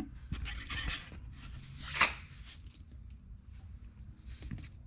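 Handling noise from small hardware: rustling and scraping, with one sharp click about two seconds in, as a rivet nut that is too big is tried in a drilled hole.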